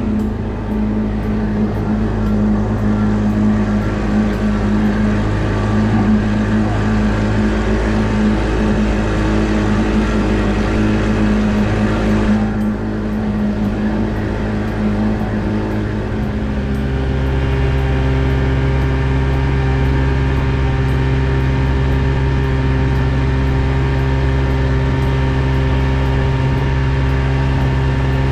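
Outboard motor running steadily at speed, driving a small aluminium fishing boat, over a steady rush of water and wind. About sixteen seconds in the engine note changes and settles lower.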